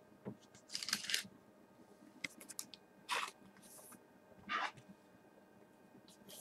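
Trading cards being handled: a handful of short, faint rustles and slides of card stock as cards are shuffled from one to the next.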